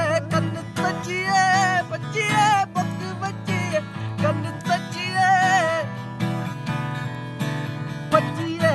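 Acoustic guitar strummed in steady chords under a solo singer whose held notes waver. The voice comes in two phrases, with guitar alone between them.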